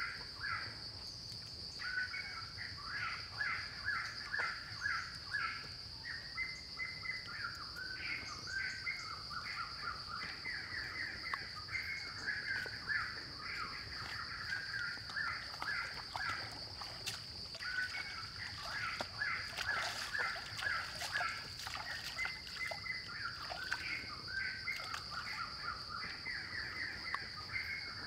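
Forest ambience: many birds calling in quick runs of short repeated notes, over a steady high-pitched insect drone.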